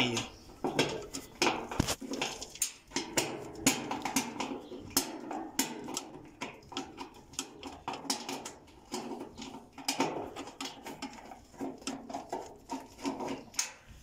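Irregular metallic clinks and knocks of hand tools and loose bolts against the steel motor mount of a washing machine as its motor is unbolted.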